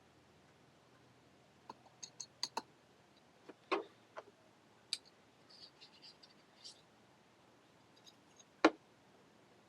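Scattered light clicks and taps, with one sharp, louder knock about eight and a half seconds in.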